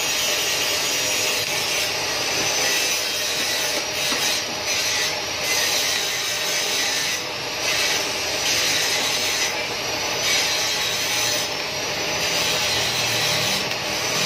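TIG welding arc hissing steadily as a stainless steel exhaust pipe joint is welded, with a few brief dips where the arc eases off.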